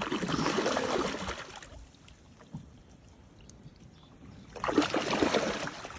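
Water splashing and sloshing in two bursts of about a second and a half each, one at the start and one near the end: a speared gar thrashing at the surface beside the boat.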